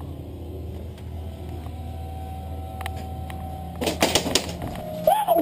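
Steady low hum, then a quick cluster of sharp clicks and knocks about four seconds in, and a short pitched sound that rises and falls near the end.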